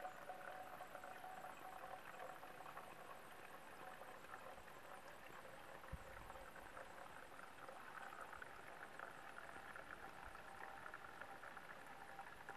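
Faint, steady trickle of filtered water from an Aquafor Universal portable filter's outlet tube running into a plastic bottle as the bulb pump is squeezed. There is a soft low bump about halfway through.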